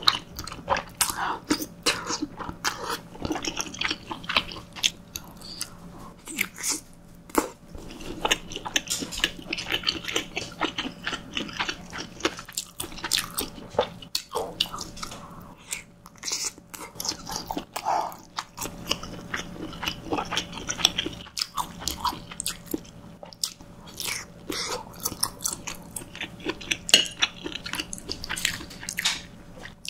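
Close-miked chewing of soft, saucy cream pasta, with many short sharp mouth clicks throughout.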